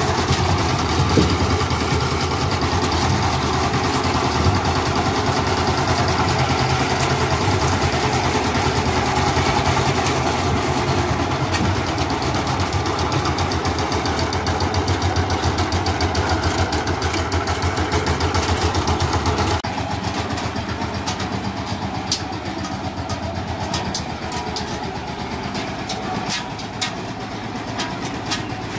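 Two-wheel power tiller's single-cylinder engine running as it tows a loaded trailer, a fast, even beat of firing strokes. About two-thirds of the way through it gets a little quieter and keeps running, with a few sharp clicks near the end.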